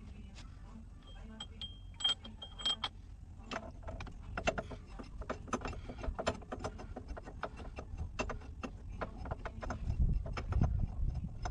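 C-frame ball joint press being tightened on a Jeep Cherokee XJ steering knuckle to press out the lower ball joint: sharp metal clicks, a few at first, then several a second, over a low rumble that grows louder near the end.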